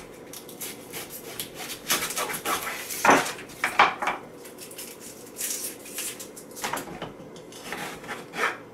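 A knife cutting an onion into chunks on a cutting board: a few irregular scraping and knocking strokes.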